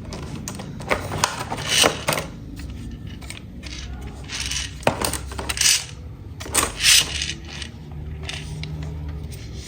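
Hard plastic toy pieces being handled, clicking and clattering against each other in a string of sharp, irregular clicks over a low hum.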